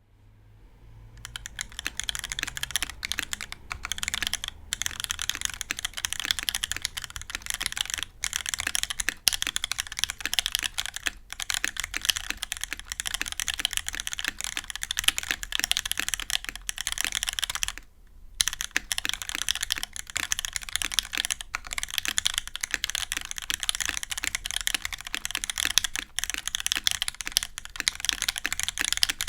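Fast, continuous typing on a custom top-mount mechanical keyboard with a 2mm brass plate, lubed Gateron Ink Black V2 linear switches with Milky tops, and GMK keycaps, broken by a few brief pauses.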